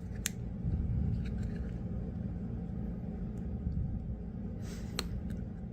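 A steady low rumble with a few small sharp clicks, one about a quarter second in and one near the end, from plastic headphone hinge parts being handled and pressed together.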